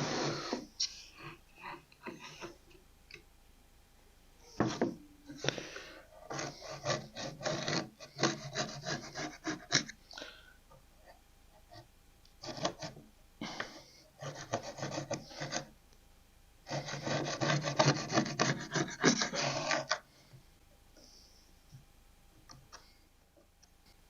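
Hand tool rasped back and forth against plywood in several runs of quick strokes, scraping leftover material out of the bottom of a dado to flatten it. The strokes stop a few seconds before the end.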